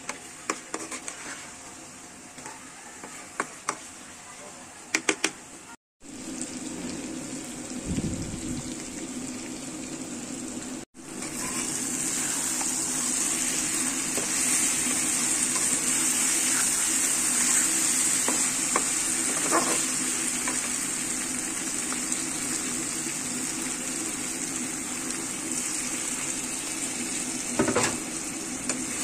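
Chicken curry frying in a nonstick pan while a spatula stirs it. In the first few seconds the spatula clicks and scrapes against the pan. From about eleven seconds on there is a steady, louder sizzle.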